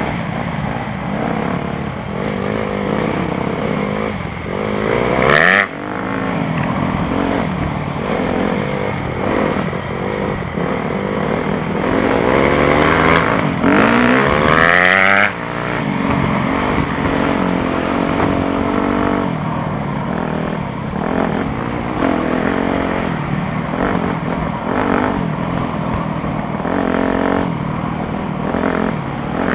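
Yamaha YZ250F's four-stroke single-cylinder engine running under throttle, revving up and down through the gears. Its pitch climbs steeply about five seconds in and again for a longer stretch halfway through, each time dropping off suddenly as the throttle is shut.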